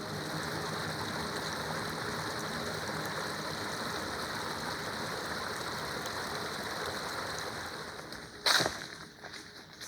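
Small moss-lined woodland brook running steadily over stones, fading out after about eight seconds, with a single sharp knock, the loudest sound here, near the end.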